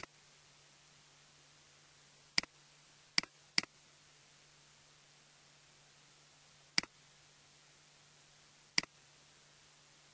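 Computer mouse clicking: five short, sharp clicks, three within about a second near the start and two more spaced out later, over a faint steady hiss and low hum.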